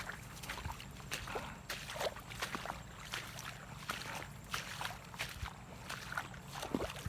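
Irregular splashing and sloshing in shallow water, many short splashes one after another, as someone wades or handles things in the water.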